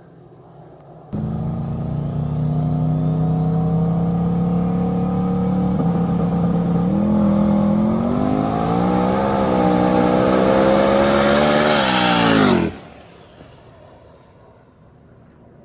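Turbocharged 5.3-litre LS V8 in a Fox-body race car running at full throttle during a street test pass. It comes in suddenly about a second in, holds a steady pitch, then climbs and wavers with a thin high whine rising over it, and cuts off sharply near the end, leaving faint wind noise.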